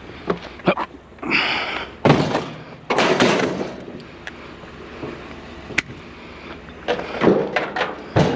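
Curbside scrap, including plastic vacuum cleaners, being handled and loaded: scattered knocks, two longer clattering crashes about two and three seconds in, and a run of knocks and thuds near the end.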